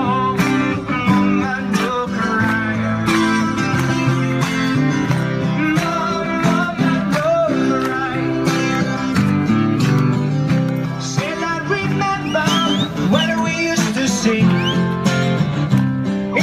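Acoustic guitar music, strummed and plucked at a steady beat.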